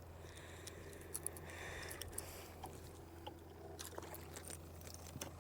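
Faint handling noises aboard a kayak: scattered small clicks, knocks and a brief scrape, over a low steady hum.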